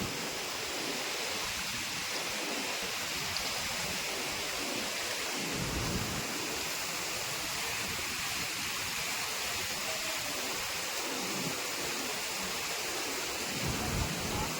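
Steady rushing noise, with low rumbles coming and going a few times.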